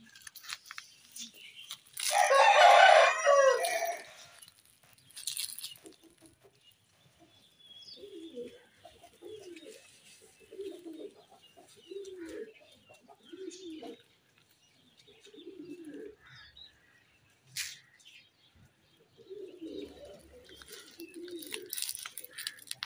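A rooster crows once, loudly, for about two seconds, starting about two seconds in. Then chickens cluck softly in a string of short, low calls about one every second or so.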